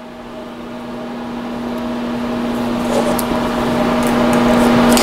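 A steady machine hum with hiss that grows gradually louder, and a few faint light metal clicks from about two seconds in as a steel vise jaw is handled and set into a milling vise.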